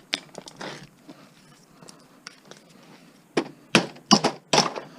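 Hammer blows knocking parts out of a scrapped stove: a few light taps and clicks, then four sharp, loud strikes in quick succession starting about three and a half seconds in.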